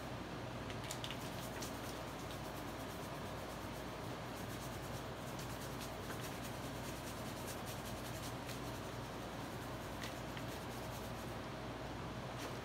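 Paintbrush dabbing and brushing wet plaster onto a cloth-covered sculpture: faint soft strokes and small clicks scattered throughout, over a steady low hum.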